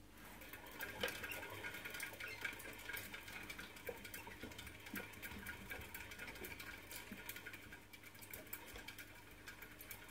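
Pet rat running in a plastic exercise wheel: a faint, steady stream of rapid clicking and rattling from the spinning wheel and the rat's feet.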